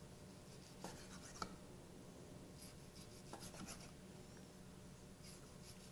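Chef's knife slicing a block of seared tuna on a wooden chopping block: faint scraping strokes, with a few soft knocks of the blade against the wood about a second in and again past three seconds.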